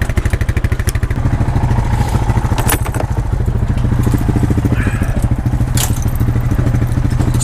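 An engine idling with a fast, even beat, with two sharp knocks about three seconds apart.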